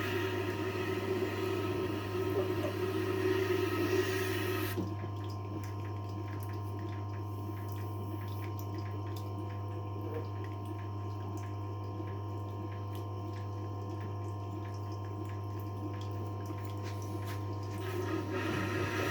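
Tormek T-8 wet sharpening machine running with a steady motor hum. A kitchen knife rasps against the turning water-cooled stone for the first few seconds, then only the wet stone turns with small clicks and water sounds, and the grinding starts again near the end.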